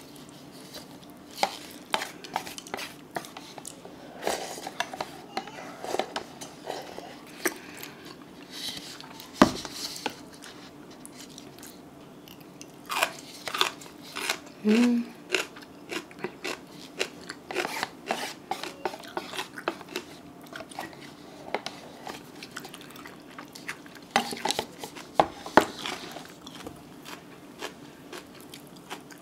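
Close-miked eating of Buldak stir-fried noodles and mustard-leaf kimchi: chewing, crunching and chopsticks clicking against the noodle cup, in a scatter of short sharp sounds. A single sharp knock about nine and a half seconds in is the loudest, and a brief rising pitched sound comes about halfway.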